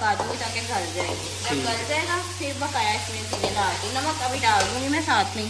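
Metal spatula stirring and scraping chicken pieces around a metal karahi, with repeated scraping against the pan over the sizzle of the chicken frying in oil with ginger and garlic.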